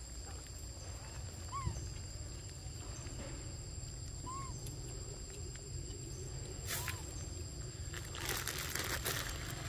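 Forest ambience: a steady high insect drone, three short rising-then-falling whistled animal calls a couple of seconds apart, and a burst of rustling near the end.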